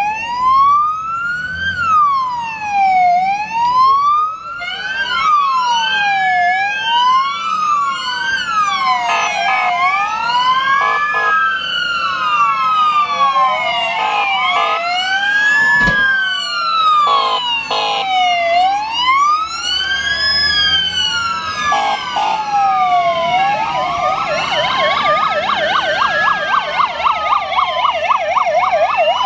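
Several fire engine sirens wailing at once, each rising and falling about every two seconds so the cycles overlap, with brief steady-pitched blasts now and then. Near the end a faster yelping siren joins in.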